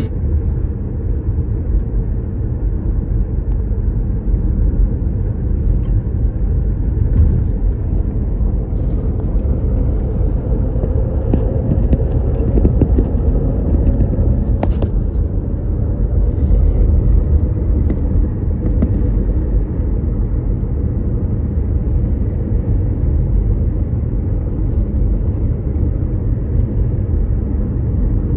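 Steady low rumble of a car driving along at road speed: tyre and engine noise heard from inside the car.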